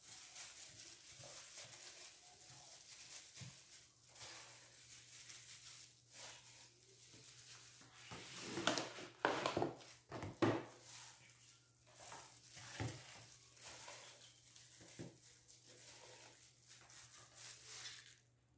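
Gloved hands handling cubes of white cheese and clear plastic food containers: scattered rustling, clicks and knocks of plastic, loudest in a cluster about halfway through. A faint low hum runs underneath from a few seconds in.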